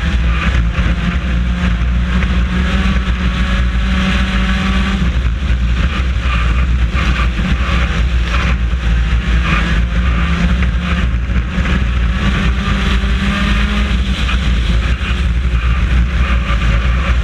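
Four-cylinder race car's engine running hard, heard from inside the car. Its pitch rises and falls over a loud, steady rush of wind and road noise.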